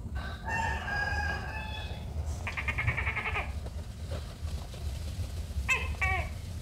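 Animal calls: a drawn-out call, then a quavering call, then two short calls falling in pitch near the end.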